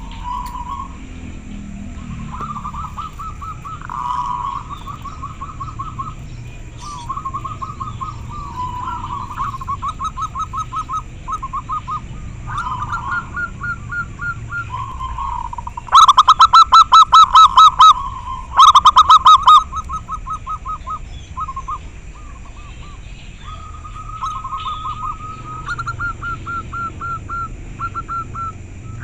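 Zebra doves (perkutut) cooing: phrases of rapid staccato coo notes from several caged birds answering one another. The bird nearest coos much louder in two phrases a little past halfway.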